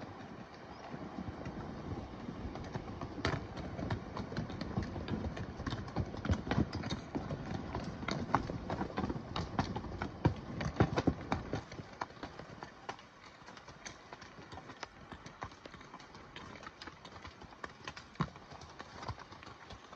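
Horse hooves clopping on a rocky trail at a walk, an irregular run of sharp knocks on stone, fainter from about two-thirds of the way in.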